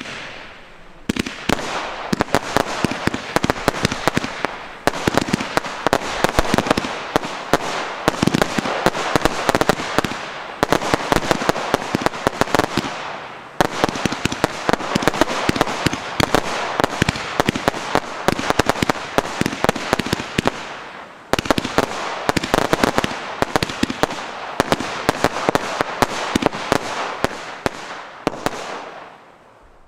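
Pyroland Hypermaze, a 120-shot 20 mm crossette compound firework cake, firing. A dense rapid stream of launch thumps and sharp cracks as the crossette stars split comes in about five waves with short dips between them, and it tails off near the end.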